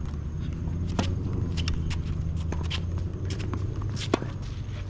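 A tennis ball bounced on a hard court before a serve, scuffing footsteps, and then a sharp racket-on-ball pop of the serve about four seconds in, the loudest hit in the stretch. A steady low hum runs underneath.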